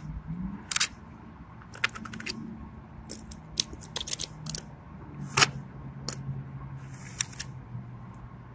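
Squishy rubber toy squeezed and released in a puddle of slime, sucking it up with a series of short wet squelches and clicks, over a faint steady low hum.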